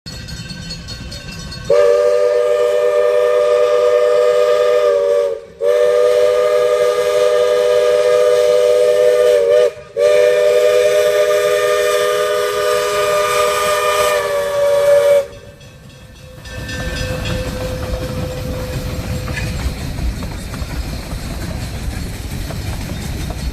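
Diesel locomotive air horn sounding three long blasts, each a steady multi-note chord, the last the longest. After a short pause, a low rumble of the train running follows.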